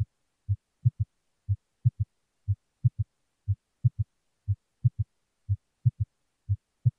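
Recorded heartbeat with a third heart sound (S3, ventricular gallop): low thuds in a repeating three-beat pattern, one thud then a close pair, about once a second. The extra sound marks rapid filling of a dilated left ventricle, the sign of heart failure with volume overload.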